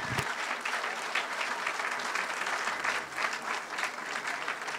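Audience applauding: a dense, steady patter of many hands clapping, easing off slightly near the end.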